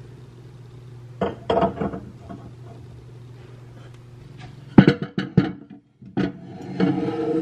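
Soft background music with a plucked acoustic guitar. About five seconds in comes a short burst of sharp clinks, the loudest part, as white china plates are stacked on the cabinet shelf.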